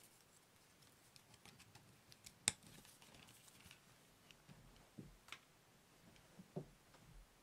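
Near silence with faint, scattered light clicks and taps from a bicycle helmet being handled. The sharpest click comes about two and a half seconds in.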